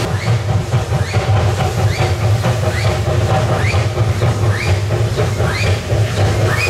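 Two-foot-gauge Hudswell Clarke locomotive running under load: a steady low drone, with a short rising squeak repeating about every three-quarters of a second.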